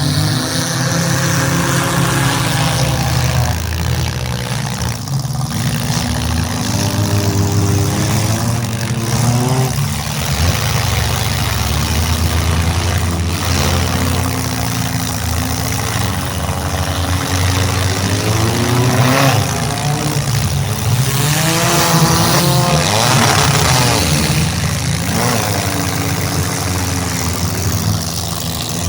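Demolition derby cars' engines running loud and revving, several at once, their pitch rising and falling as they accelerate and back off, with more revving in the second half.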